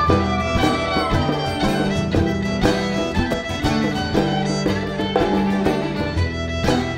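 Fiddle playing a traditional Irish jig melody over acoustic guitar and mandolin accompaniment, a live string band at a steady, lively pace.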